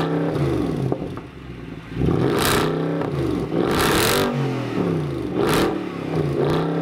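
Mercedes-Benz C63 AMG's 6.2-litre V8 being revved hard while the car stands still. The exhaust note climbs and falls back about four times.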